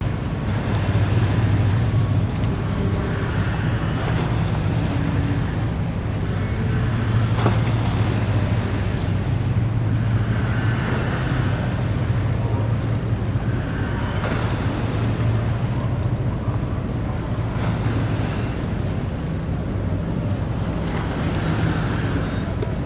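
Steady low engine hum from a vessel in the harbour, with wind on the microphone, and a single sharp click about seven and a half seconds in.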